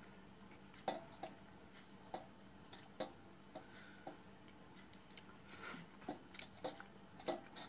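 Faint, scattered clicks, taps and squishes of fingers scooping food in a small steel bowl, mixed with chewing.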